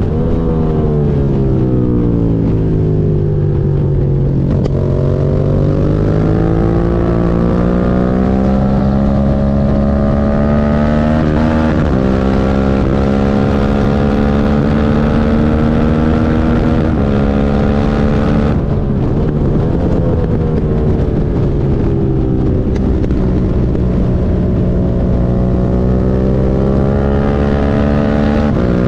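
Suzuki SV650's 90-degree V-twin engine running under way: its note falls at the start, then climbs slowly over several seconds. There are sudden steps in pitch about twelve and seventeen seconds in, and a dip a little later.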